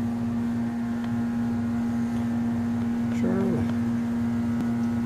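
A steady low hum, with one short voice-like sound a little over three seconds in.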